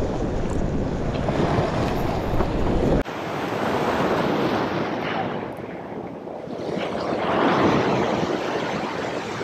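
Ocean waves surging and washing over a rock ledge, swelling up about four seconds in and again near the end. Wind rumbles on the microphone for the first three seconds and cuts off suddenly.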